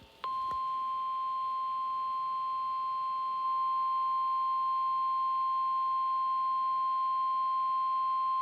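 NOAA Weather Radio's 1050 Hz warning alarm tone: one steady, unbroken beep that steps a little louder about a third of the way through. It is the signal that a weather warning announcement follows, here a flash flood warning.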